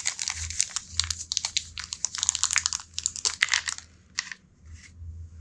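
Thin plastic bag crinkling as it is pulled open and handled to free small plastic game tokens. The crinkling is dense for about four seconds, then stops, leaving a couple of faint rustles.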